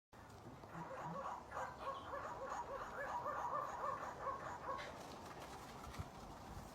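An animal making a quick run of short, pitched calls, about three or four a second, which stop a little before five seconds in. A soft knock follows about a second later.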